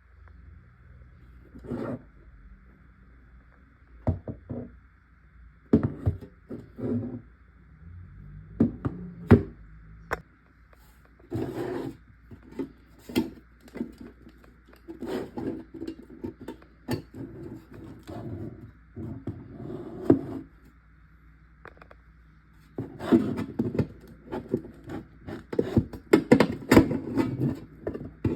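Irregular knocks, thunks and scraping as someone works at breaking open a sealed piggy bank, in scattered strokes at first and thicker, louder bursts over the last few seconds, over a faint steady hiss.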